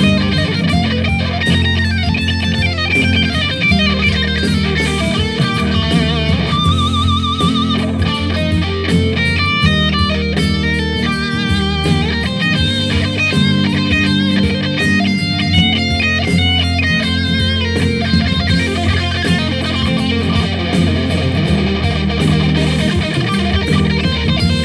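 Electric guitar playing a lead line over a backing track with steady low notes. About seven seconds in, a held note wavers with wide vibrato, followed by quick runs of notes.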